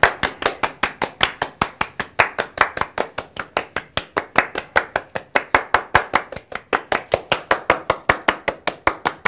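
Hands clapping fast and evenly in a steady rhythm, about five claps a second.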